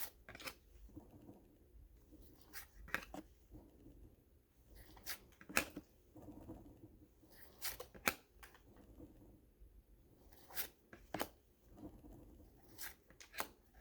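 Baseball cards being handled and flipped through by hand: soft sliding of card stock, broken by a dozen or so sharp little clicks and snaps at irregular intervals.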